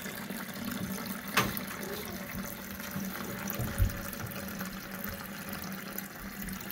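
Toilet tank refilling: water running in through the fill valve with a steady hiss. A sharp click comes about a second and a half in, and a short low thump just before the four-second mark.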